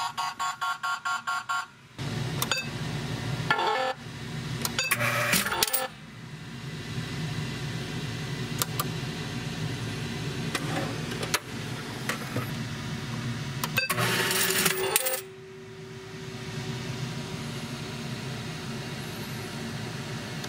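Sigma video poker machine's alarm beeping rapidly, about five beeps a second, signalling a coin hopper jam error; it cuts off about two seconds in. After that comes a steady hum from the open machine, with metallic clicks and coin clinks and two louder rattling spells of coins in the hopper, about five and fourteen seconds in.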